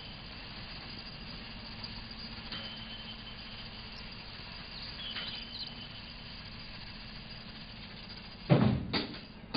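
Steady outdoor city ambience: a low hum of distant traffic with a few faint high-pitched squeaks. About a second before the end, a loud drum hit starts a music track with a beat.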